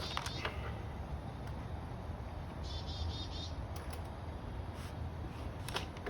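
A few sharp, light clicks of exhaust parts and hardware being handled, over a steady low hum. About halfway through comes a short run of evenly spaced high chirps.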